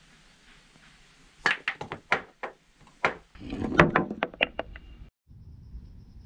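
Handmade clay billiard balls knocking sharply against one another and the wooden cue, a quick run of clacks. This is followed by a fuller, rattling cluster of knocks as a ball rolls along the mud table into a pocket hole. The sound cuts off suddenly about five seconds in.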